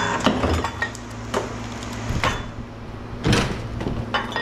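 Pieces of scrap metal knocking and clanking as they are handled and set down, a few separate knocks with the loudest about three seconds in, over a low steady hum.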